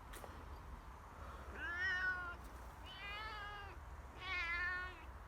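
A domestic cat meowing three times, each meow lasting under a second.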